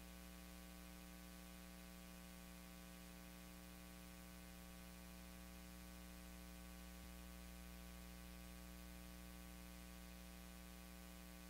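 Near silence: a steady low electrical hum with its overtones over a faint even hiss.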